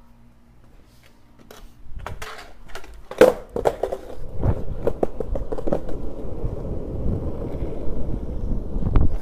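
Skateboard: a few knocks as the board is handled, then a loud clack about three seconds in as it lands on the pavement, followed by the wheels rolling over rough asphalt with a steady rumble.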